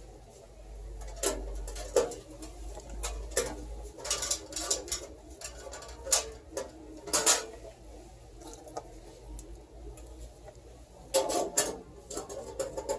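Computer parts being handled during PC assembly: scattered sharp clicks and light knocks of plastic and metal, with a quicker run of clicks near the end.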